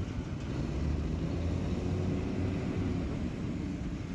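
Steady low rumble of heavy machinery running: the waste-processing plant's conveyors and screens and diesel excavators, with a faint steady hum in the middle.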